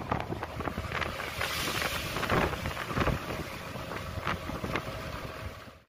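Strong gusty wind buffeting the microphone on a small boat in rough seas, with water rushing and splashing. The sound cuts off suddenly at the end.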